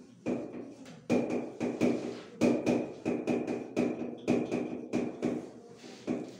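Writing implement knocking and tapping on a board while a diagram is drawn: irregular sharp taps, two or three a second, each with a short ringing tone.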